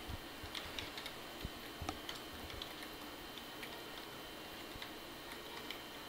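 Typing on a computer keyboard: irregular key clicks, a few a second.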